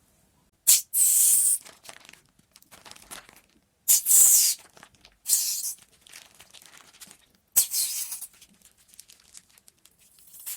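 Hands working slime-making materials, making crinkling, tearing noise in four loud bursts, each under a second, with faint crackling in between.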